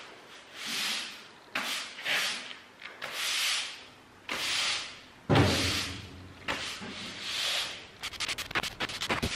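New, stiff-bristled push broom sweeping dried clay dirt across a concrete floor: scratchy swishing strokes about once a second, a single thump about halfway through, and quicker, shorter scraping strokes near the end.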